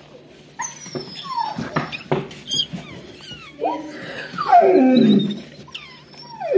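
A newborn puppy squeaking faintly while it is rubbed dry in a cloth, with the cloth rustling. About four seconds in comes the loudest sound, a long, lower dog whine that falls in pitch.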